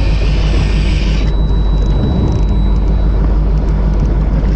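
Fishing boat's engine running with a steady low rumble, mixed with wind on the open water. A higher hiss cuts off about a second in.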